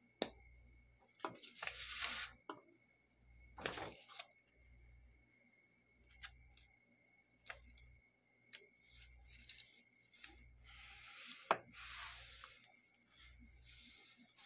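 Paper handling on a journal page: a sheet of patterned paper rustling as it is laid down and smoothed flat by hand, with a few sharp taps and clicks between the stretches of rubbing.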